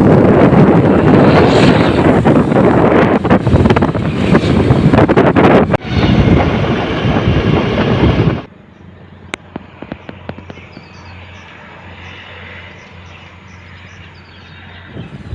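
Wind buffeting the microphone as loud, rough noise. It cuts off suddenly about eight seconds in to a much quieter stretch with a few faint clicks, and comes back near the end.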